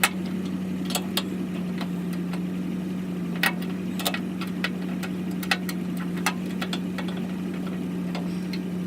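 Irregular metallic clinks and taps of hand wrenches on the plow's skid shoe bracket bolts, over a steady low hum.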